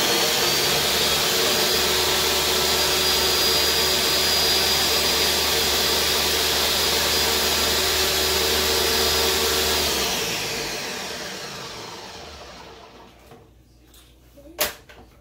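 Countertop blender running at full speed, blending a liquid marinade with chopped onion and bell pepper. It is switched off about ten seconds in and spins down over a few seconds. A single sharp knock comes near the end.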